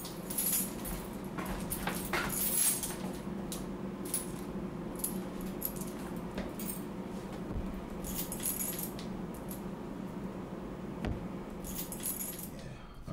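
A ring of metal keys jingling as they are turned over in the hands, in short bursts again and again, over a steady low hum.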